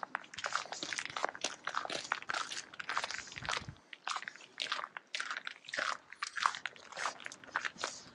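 Footsteps crunching on snow, a steady run of crisp steps at walking pace.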